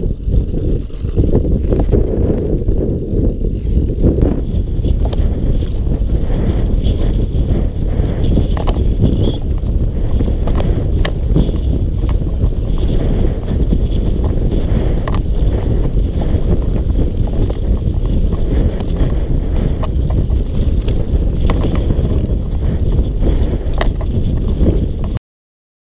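YT Jeffsy aluminium 29er mountain bike descending a steep, rough trail, heard from the rider's own camera: a dense low rumble of tyres over the ground with frequent sharp clicks and knocks from the bike. The sound cuts off suddenly near the end.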